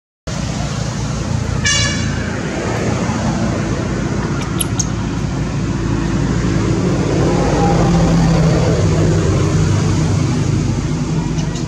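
A motor vehicle's engine running nearby: a steady rumble whose low hum grows louder in the second half. A brief high squeak comes about two seconds in.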